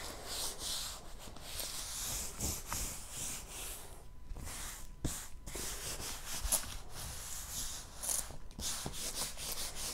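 A flat hand rubbing and smoothing across a diamond painting canvas and its plastic cover film to flatten it. The rubbing comes in repeated strokes with short pauses between them.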